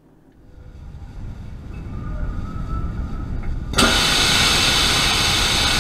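A low rush builds steadily, then about four seconds in a loud, steady hiss starts suddenly: gas purging from a hybrid rocket engine on its test stand after an aborted ignition.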